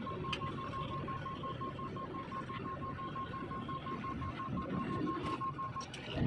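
An electronic beeper gives a rapid, even run of short high beeps, about six a second, over a low engine rumble. The beeping stops shortly before the end.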